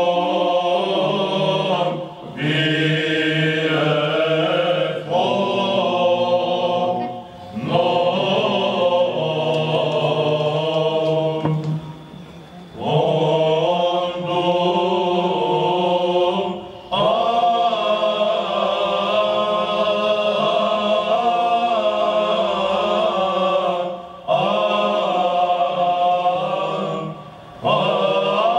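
Men's Byzantine choir chanting in the plagal first mode, in long sustained phrases broken by short pauses for breath.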